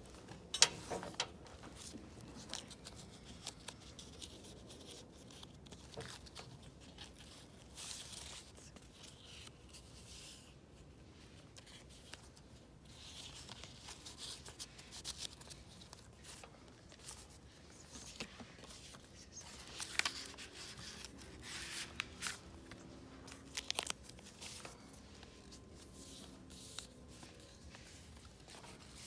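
Paper rustling and crinkling as the stiff, aged pages and tucked paper ephemera of a handmade junk journal are handled and turned. The rustles come in scattered bursts, with a few sharper crackles, the loudest near the start.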